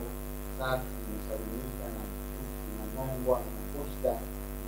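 A steady electrical mains hum, with evenly spaced overtones, runs under a man's voice, which breaks in with a few short, halting phrases.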